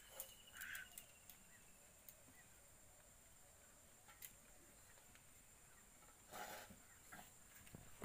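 Near silence: quiet outdoor ambience with a few faint bird sounds, a short chirp near the start, and a brief rustling noise about six and a half seconds in.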